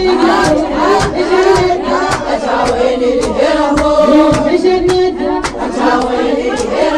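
Shia mourning lament (latmiya): a female mullaya chanting with other voices joining, over rhythmic chest-beating (latm) at about two strikes a second.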